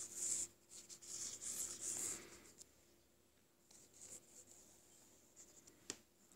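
Stylus scratching on a tablet screen in short strokes, faint, as handwritten notes are rubbed out with the eraser tool; a sharp tap of the stylus near the end.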